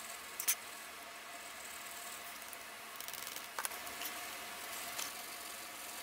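Steady background hiss with a faint hum and a few brief soft clicks, the sharpest about half a second in, others later on and near the end.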